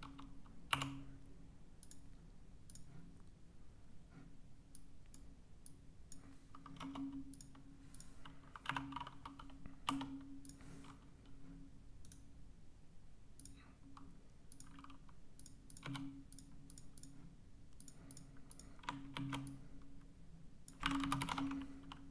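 Computer keyboard typing and mouse clicking in irregular short runs with pauses between, busiest near the end.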